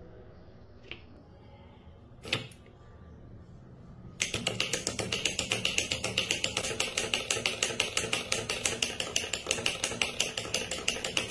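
Homemade bug trap of four small DC motors with wooden sticks on their shafts, switched on about four seconds in: the spinning sticks slap round in a rapid, even clatter of many strikes a second. Before that it is fairly quiet, with two light clicks.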